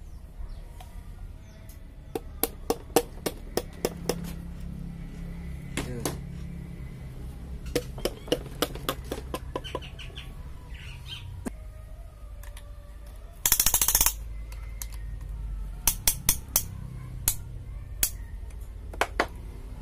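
Sharp taps of a hammer handle on a piston crown, driving the piston through a ring compressor into the cylinder bore of a Hyundai Atoz engine block, in several quick runs of taps. About two-thirds of the way through, a short loud burst of noise.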